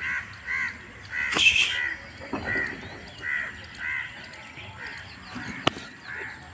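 Crows cawing over and over, a short caw every half-second or so all the way through, with a single sharp click near the end.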